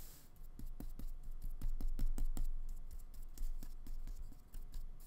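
Irregular light ticks and taps of a flat paintbrush mixing acrylic paint on a palette and dabbing it onto paper, several a second, over a low steady hum.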